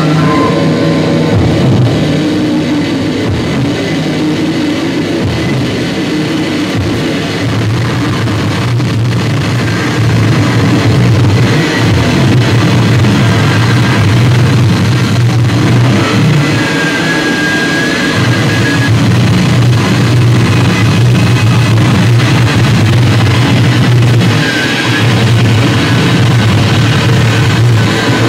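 Electric guitar and electric bass played live and loud through amplifiers and effects pedals: a dense, distorted wall of rock over a steady low bass drone that drops out briefly a few times.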